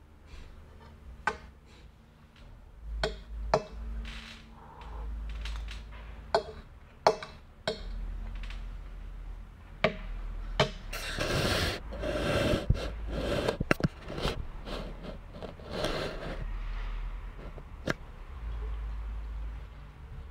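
Metal spoon clinking and scraping against a ceramic plate while scooping up orzo, a sharp click every second or two. In the middle comes a louder stretch of a few seconds of rustling, scraping noise.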